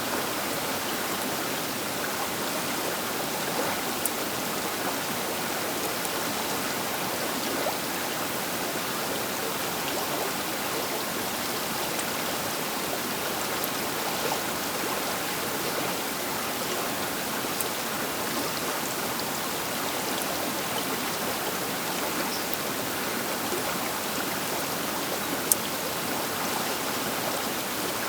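The Baker River flowing past its bank: a steady, even rush of moving water. A single brief sharp click stands out about 25 seconds in.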